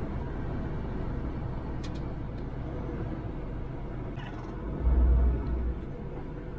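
Liebherr LTM1300-6.2 all-terrain crane driving slowly, heard from inside the cab as a steady low engine and road rumble. A brief high squeak comes about four seconds in, and a louder low rumble surge follows about a second later, lasting under a second.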